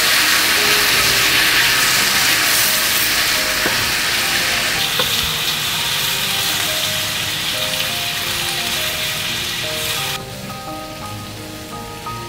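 Lotus root slices and chicken tenderloin sizzling in a miso-butter sauce in a small skillet as chopsticks toss them. The sizzle is loud and steady, eases a little about five seconds in and drops off suddenly about ten seconds in. A soft melody of single notes plays underneath.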